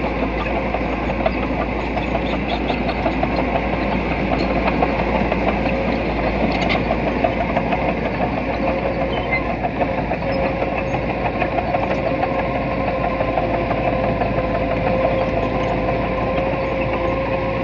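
Diesel engine of earthmoving machinery running steadily, with a constant hum held at one pitch over the engine noise.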